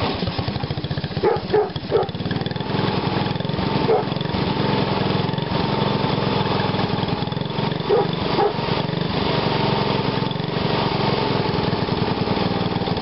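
Small engine fed through a GEET fuel-processor reactor, running steadily at an even idle just after catching from a cold start. There are a few short knocks about a second or two in and again near the middle.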